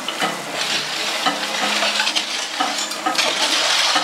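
Long-handled rakes dragging and spreading gravel on a shallow stream bed, with stones scraping and clattering under rushing water. It gets louder about three seconds in.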